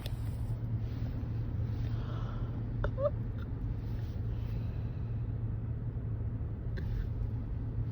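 Steady low background hum, with a faint click and a short rising squeak about three seconds in.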